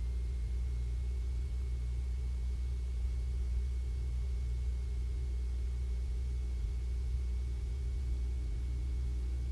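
Cessna 150's Continental O-200 four-cylinder engine and propeller droning steadily on final approach, a low, even drone with no change in power.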